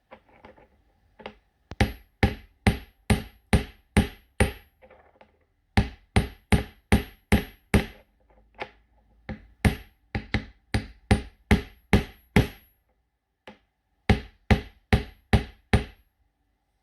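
Hammer blows, about two a second, in four runs of five to seven strikes with short pauses between, each leaving a faint high ring, as a bearing is tapped out of or into a Nutribullet blade assembly.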